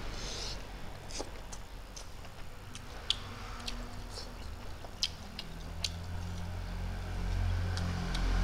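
Close-up eating sounds: fingers picking at fried fish and rice, then chewing and lip-smacking, heard as irregular sharp wet clicks. A steady low hum comes in about halfway through.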